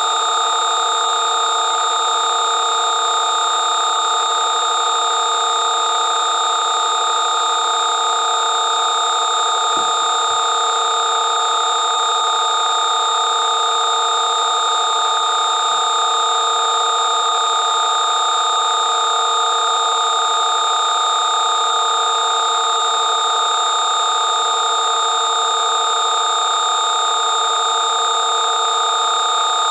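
Garyaev 'matrix' sound program: a steady electronic drone of several held tones, mid to high pitched, unchanging in pitch and level.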